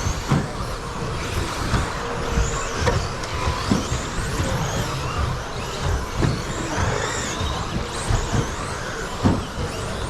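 Several 1/10-scale electric RC stadium trucks with 13.5-turn brushless motors racing: motors whining up and down in pitch as they accelerate and brake, with repeated short thumps.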